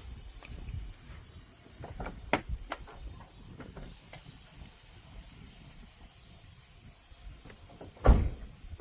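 Scattered light clicks and knocks of hand work on a car's engine bay, with one louder knock about eight seconds in, over a steady faint hiss.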